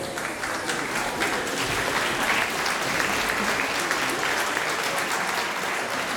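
Audience applauding, many hands clapping together.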